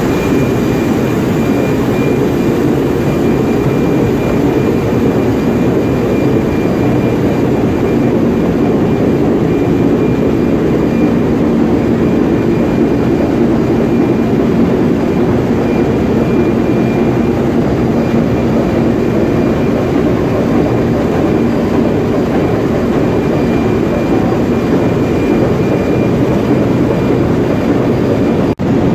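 Loud, steady engine-room noise of a Sulzer 6RTA62 six-cylinder two-stroke main engine running at full speed, with a faint steady high whine above the low machinery noise. The sound cuts out for an instant near the end.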